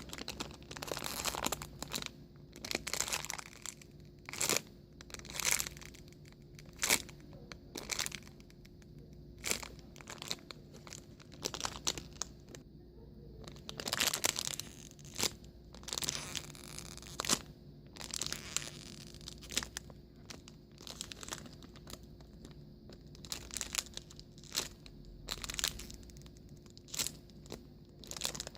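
Clear plastic packaging crinkling and crackling as it is handled, in irregular sharp crackles with a few longer rustling stretches.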